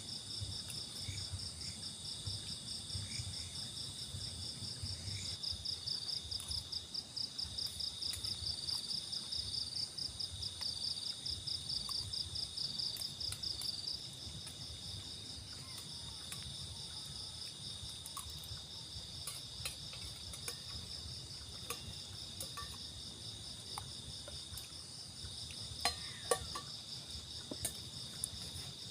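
A chorus of night insects chirring steadily in several overlapping high tones. A fast-pulsing trill among them stops about halfway, and a few sharp clicks come near the end.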